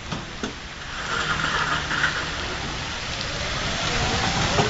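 Battery-powered ride-on train rolling past on pavement: a steady hiss of its wheels on the ground that grows louder about a second in, with a few light clicks.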